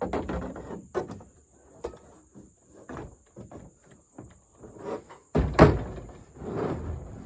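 Irregular knocks, thunks and rustling from objects being handled, with a louder crash about five and a half seconds in.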